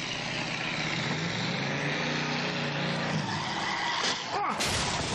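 A stretch limousine's engine revving hard under full throttle, its pitch climbing for about two seconds and then falling away, with the tyres squealing and skidding. A sudden loud rush of noise comes near the end.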